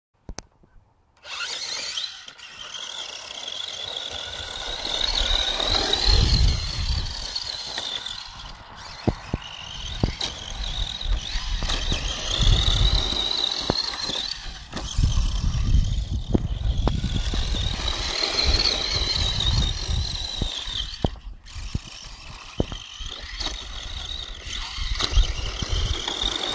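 Electric motor of a Himoto Z-3 1:10 4x4 RC buggy whining, its pitch rising and falling over and over as the throttle is worked, with bursts of low rumble. It starts about a second in.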